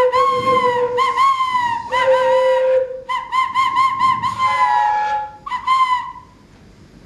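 Traditional Māori wooden flutes (taonga pūoro) played as bird calls. Short whistled chirps bend up and down in pitch over a lower held note during the first few seconds, then come in a fast run of about four chirps a second, and stop about six seconds in.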